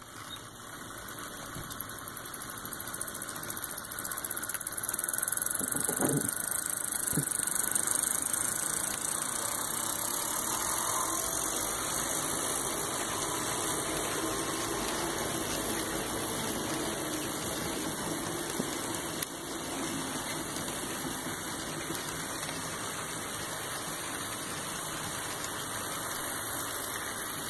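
HO scale model train running on the layout's track: the locomotive's small electric motor humming and the wheels rattling over the rails as the cars roll by. The sound grows louder over the first few seconds, then holds steady, with a couple of light clicks a few seconds in.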